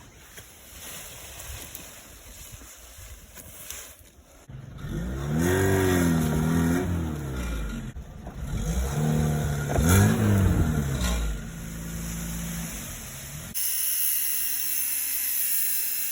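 Cordless angle grinder running and cutting into a steel cable, its motor pitch dropping and recovering twice as the disc bites under load. Near the end the sound changes abruptly to a different steady sound.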